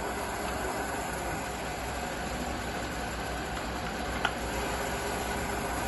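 Hitachi Seiki 3ML-P horizontal milling machine running its table power feed at a raised feed rate: a steady mechanical hum, with one short tick about four seconds in.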